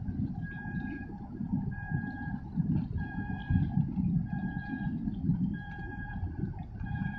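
A steady pitched tone with overtones pulsing on and off about every second and a quarter, over a constant low rumble.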